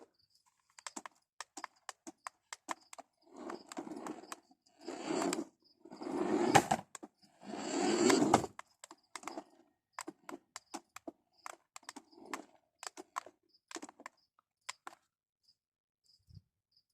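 Handling sounds: a run of sharp clicks and several short rustling bursts in the middle, with clicks thinning out near the end. A faint, regular high chirping, like a cricket, runs underneath.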